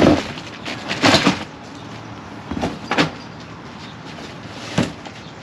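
Cardboard boxes being handled: a handful of short rustles and knocks as flaps and contents are moved, with the creak and shuffle of someone getting up from a wicker rocking chair.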